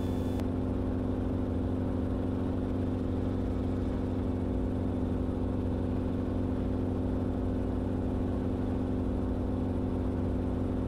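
Enstrom helicopter in cruise, heard from inside the cockpit: a steady drone of engine and rotor with several constant low tones.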